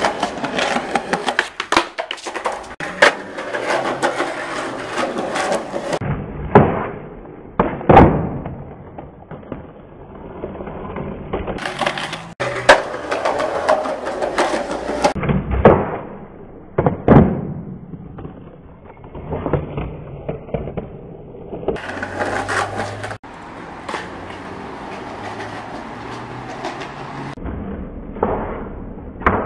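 Skateboard rolling over paving slabs, broken by repeated sharp clacks of the board hitting the ground as tricks are popped and landed.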